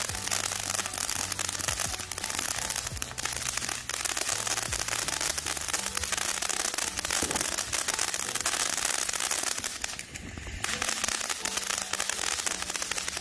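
Consumer firework fountain spraying sparks with a steady hiss and dense crackling pops throughout. The noise drops briefly about ten seconds in, then picks up again.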